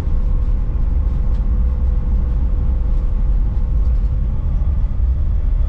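Steady low rumble of engine and road noise inside the cabin of a 1965 Ford Falcon driving on the highway, with a faint steady hum that fades out partway through.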